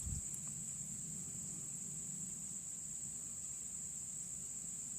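Steady high-pitched insect chirring, one continuous tone, over a faint low hum.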